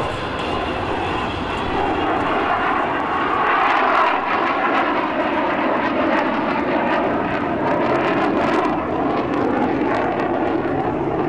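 JASDF F-15 fighter's twin Pratt & Whitney F100 turbofans in a slow, gear-down pass: a loud, steady jet rush, with tones in it that slide slowly lower as the aircraft goes by.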